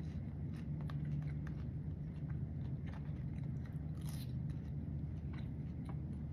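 A person chewing a mouthful of seasoned fried potato wedges, with small scattered mouth clicks over a steady low hum.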